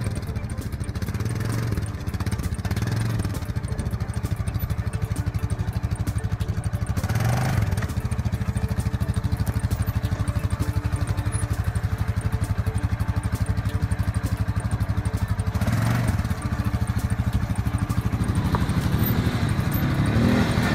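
CFMoto CF625 ATV's single-cylinder four-stroke engine running steadily at low speed, with two brief throttle blips, about seven and sixteen seconds in.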